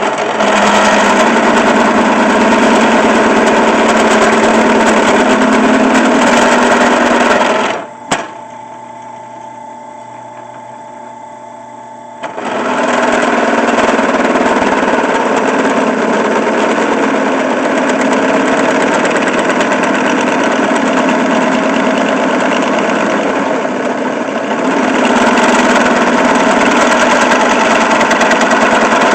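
Small drill press motor running under load as a reground twist drill cuts into steel pipe. It stops about seven and a half seconds in, with a single click, and starts up again about twelve seconds in.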